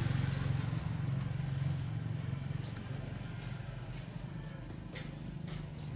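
Motorbike engine running and fading away as it moves off, with a few faint clicks in the second half.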